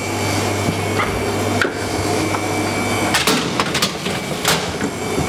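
Steady fan noise and hum of a blast chiller, with several short clicks and knocks as its door is opened and a tray of gelato moulds is set on its racks.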